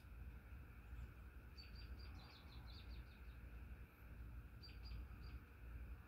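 Near silence: a Leslie Locke "Play-It-Again-Sam" ceiling fan coasting down with the power off, its bearings silent. Only a low steady hum and a few faint, short high chirps, in a cluster a couple of seconds in and again near the end.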